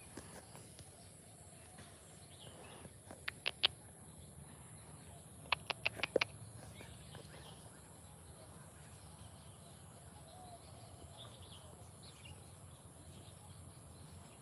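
Faint bird chirps over a quiet background, broken by two quick runs of sharp clicks: three about three seconds in, and four or five around six seconds in.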